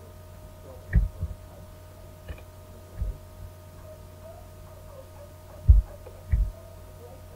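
Steady electrical hum broken by five short, dull, low thumps: two close together about a second in, one near three seconds in, and a pair in the second half, the first of which is the loudest.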